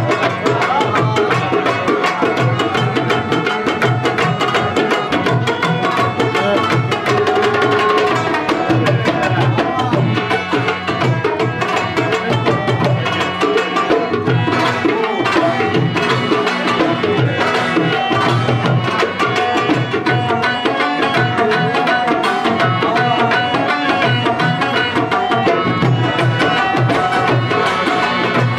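Live tabla drumming in a fast, steady rhythm, with a plucked rubab playing the melody over it.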